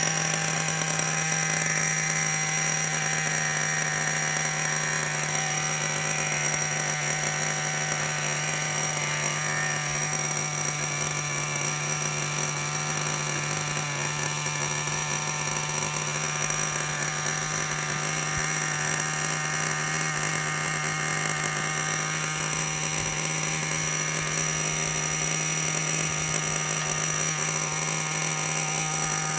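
Small nitro glow engine (a VX engine) of an RC monster truck idling steadily after starting, a constant buzz whose pitch does not change.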